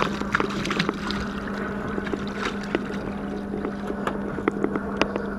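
Steady low hum aboard a small boat, with scattered sharp clicks and knocks.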